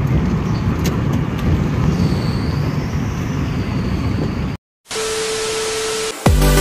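Engine and road noise inside a moving auto-rickshaw, a steady rumble. About five seconds in it cuts off, a steady test-card beep sounds for about a second, and electronic music with a heavy beat starts just before the end.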